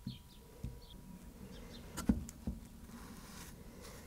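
A few light knocks and taps of wooden pieces being fitted into a glued pine frame and handled on a workbench, the loudest about two seconds in.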